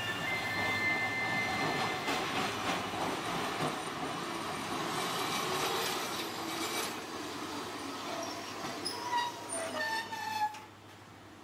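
Tosaden streetcar running along street track toward the camera with a steady rumble. It gives several short, high squeals from its steel wheels and brakes as it slows, then comes to a stop about ten and a half seconds in.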